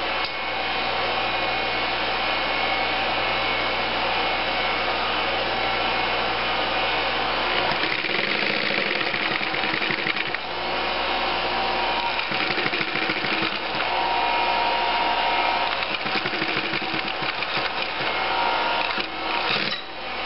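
Singer 111W155 industrial sewing machine running and stitching, a steady mechanical whirr and clatter whose speed changes a few times. It is a trial run on its newly replaced timing belt.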